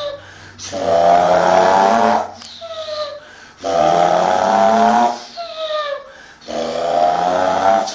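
A person imitating a truck engine with their voice: a buzzing drone held for about a second and a half, then a tone falling in pitch, three times over, like an engine pulling and shifting up through the gears.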